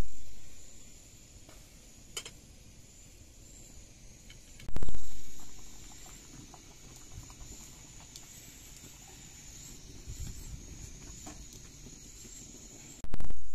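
Wood fire crackling softly under a cooking pot, with a faint steady high hiss behind it. Twice, about five seconds in and near the end, a loud sudden rush of noise fades away over about a second.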